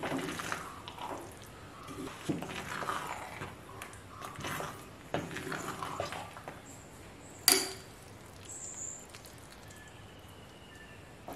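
Wooden spatula stirring and mashing thick boiled dried tapioca in a clay pot: repeated wet, squelching scrapes for about six seconds. Then one sharp knock against the pot, the loudest sound, about seven and a half seconds in.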